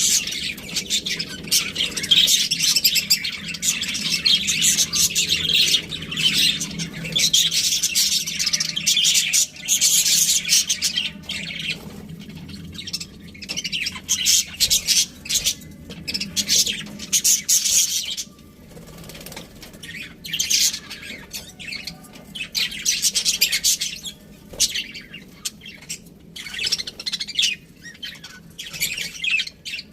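Several budgerigars chattering and chirping together. The chatter is dense for the first dozen seconds, then comes in shorter bursts with brief pauses between them.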